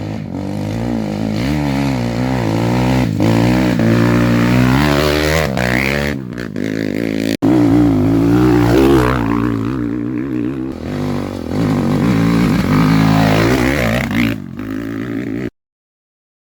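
Off-road trail motorcycle engine revving up and down over and over, its pitch rising and falling as the throttle is worked. There is a brief break a little past halfway, and the sound cuts off abruptly near the end.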